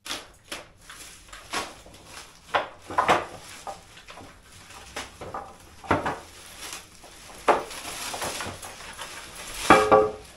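Irregular knocks, scrapes and shuffling as a carpenter handles a length of door-lining timber on a folding workbench and moves about it, with the loudest clatter near the end.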